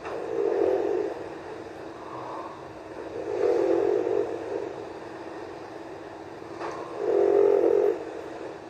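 A sleeping person snoring: three snores about three and a half seconds apart.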